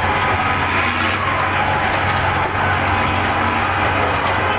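A tractor engine runs steadily under the din of a crowd shouting.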